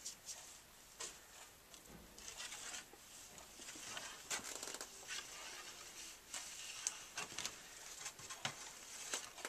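Faint rubbing and scattered light ticks of an electric waxing iron being slid along a cross-country skate ski's base, ironing melted wax into the base.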